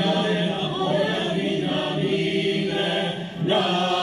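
Mixed choir singing a cappella in held chords. About three and a half seconds in, a brief break, then a new sustained chord.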